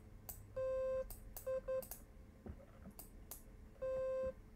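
BeSpoke Synth oscillator playing short beeping notes at one pitch, each starting with a click. One note lasts about half a second, two quick ones follow just before two seconds in, and another half-second note comes near the end. A few soft clicks fall between the notes.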